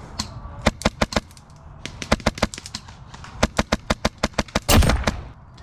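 Airsoft guns firing: sharp cracks in quick irregular strings, some runs at about eight to ten shots a second, with a louder noisy rush about three-quarters of the way in.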